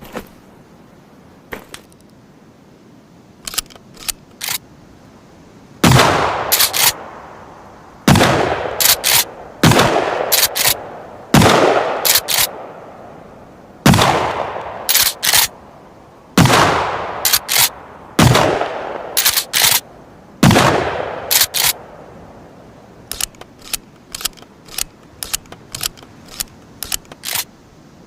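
Remington 870 TAC-14 pump-action firing eight shots about two seconds apart, each shot ringing out and followed by two quick clicks of the pump being racked. Quieter mechanical clicks of the action are heard before the first shot and after the last.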